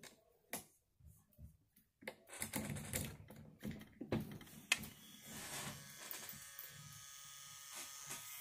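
Handling knocks and rustles as a CNC Q5 rotary tattoo pen is picked up, then from about five seconds in its motor runs steadily, set at about 7 volts.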